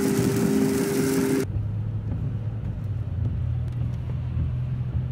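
Car interior while driving: loud road and wind hiss with a steady whine, cut off abruptly about a second and a half in and replaced by a quieter, low steady engine drone with a few faint ticks.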